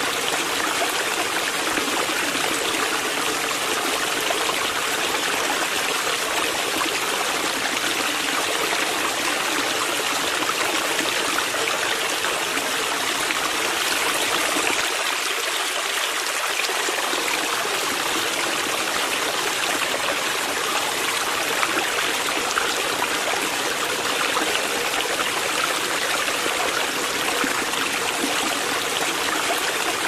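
Small waterfall spilling over a rock ledge into a shallow pool: steady splashing and trickling water.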